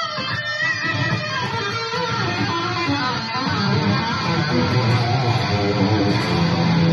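Fender Telecaster electric guitar played through a Blackstar amplifier, a busy line of quickly changing picked notes and chords, with low notes ringing out near the end.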